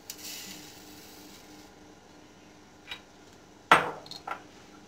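Granulated sugar poured into a stainless-steel mixer jar of chopped mango, a soft hiss for about the first second and a half. About three and a half seconds in comes a sharp knock, the loudest sound, followed by a lighter one.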